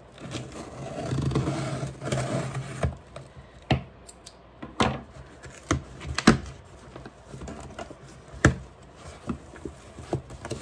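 A scissor blade drawn along packing tape on a cardboard box, a rasping slit lasting about three seconds. Then a run of separate sharp scrapes and knocks as the cardboard flaps are pulled open and handled.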